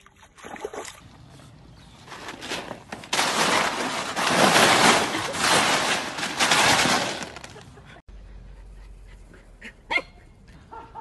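A dog pawing and splashing through a blue plastic kiddie pool heaped with ice, a loud, dense crunching clatter lasting about four seconds. Near the end a dog gives one short, sharp bark.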